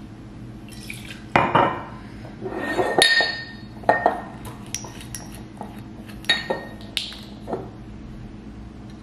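Glass liquor bottles and a glass shot glass clinking and knocking against the countertop and a metal cocktail shaker, in a string of sharp clinks. One clink about three seconds in rings on briefly.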